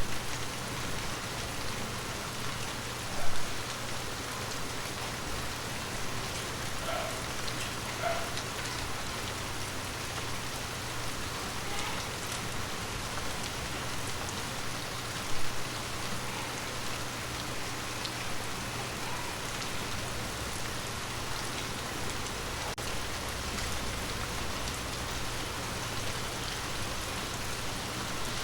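Steady rain falling on forest leaves, an even hiss with scattered individual drops. A few louder single drops stand out, the loudest about three seconds in and another about fifteen seconds in.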